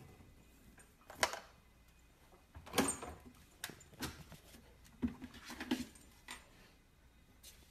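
A refrigerator door swinging open, then a husky puppy clambering onto the fridge's bottom shelf. About eight light knocks and rustles from paws and bumped plastic fittings, the strongest a little after one second and near three seconds.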